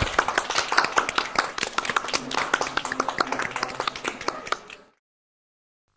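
A small group of people applauding by hand-clapping, dense and irregular, which cuts off suddenly about five seconds in.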